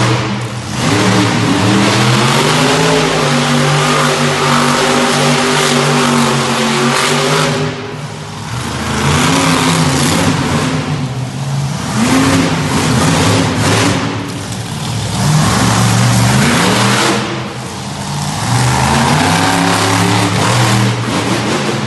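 Hyde monster truck's engine revving hard again and again, its pitch climbing and falling with each burst of throttle, easing off briefly about 8, 12 and 17 seconds in before winding up again.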